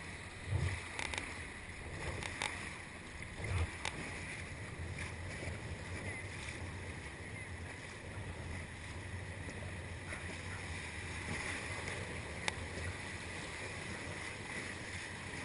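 Steady rush of river water around a raft, with a few low thumps in the first four seconds and a single sharp click near the end.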